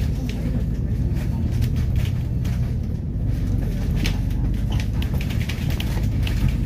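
A moving double-decker bus heard from inside the cabin: a steady low engine and road rumble, with frequent light rattling clicks from the bus interior.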